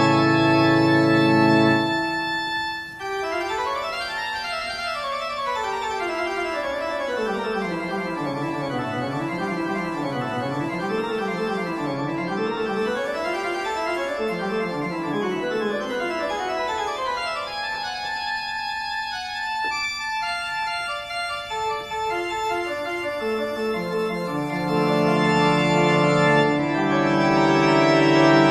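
Instrumental background music on an organ-like keyboard. Held chords give way to fast runs of notes sweeping down and back up, then settle into held chords that swell louder near the end.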